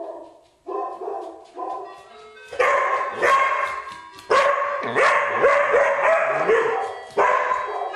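Dog barking and yowling, a run of drawn-out vocalisations that are quieter at first and turn loud from about two and a half seconds in.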